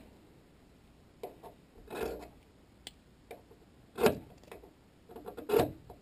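Ferrocerium fire steel rod scraped hard along the sharp back edge of a Swiss Army knife's saw blade: a series of short rasping strokes at irregular intervals, the loudest about four seconds in.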